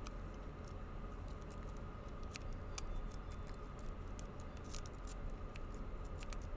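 Faint, irregular metallic clicking and scratching of a rake pick being worked through the pins of a weathered Master Lock M5 laminated steel padlock.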